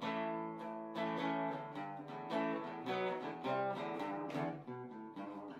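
Background music on acoustic guitar, a run of plucked and strummed notes ringing on.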